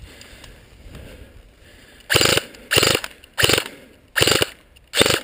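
Airsoft electric rifle, a King Arms AK-47 Tactical, firing full-auto in short bursts: five quick bursts about two-thirds of a second apart, starting about two seconds in.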